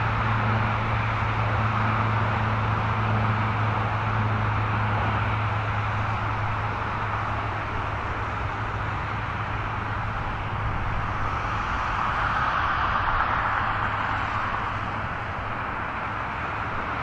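Twin-engine jet airliner at takeoff thrust, rolling away down the runway and lifting off: a steady jet rush with a low hum that fades after several seconds, swelling again about twelve seconds in, then slowly easing.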